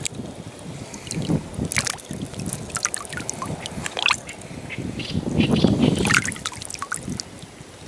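Water sloshing and splashing in shallow water as a small fish is hooked and swung up out of the water on a fishing pole, the splashing loudest about five to six seconds in.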